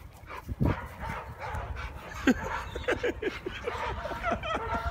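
Dogs yipping and barking: a rapid run of short, high cries that fall in pitch, starting about halfway through, several a second.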